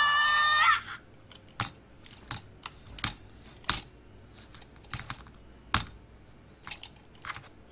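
Allspark Tech Bumblebee toy's electronic sound effect from its small built-in speaker, cutting off just under a second in, followed by a string of sharp, irregular plastic clicks as the figure's hinged arms and joints are moved by hand.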